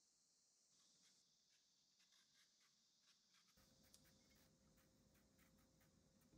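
Near silence, with faint soft clicks and scraping from a small paring knife cutting the skin off a ripe peach.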